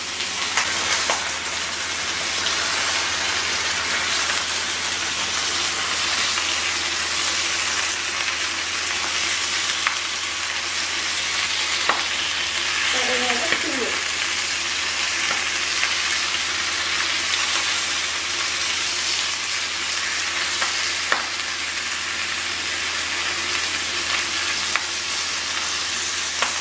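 Leafy greens sizzling as they are stir-fried in a hot pan, a steady hiss with a few clicks of the utensil against the pan.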